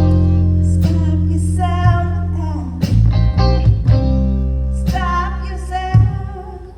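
Live blues band playing: a woman singing over electric guitar, with bass guitar and a drum kit. A sung note rises about two seconds in, with drum hits about three and five seconds in.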